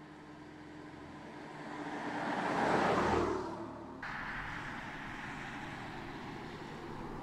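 BMW M4 Convertible's twin-turbo straight-six and tyres driving past at speed, growing louder as it approaches, peaking about three seconds in and then fading. At about four seconds the sound cuts abruptly to a steadier, fainter noise.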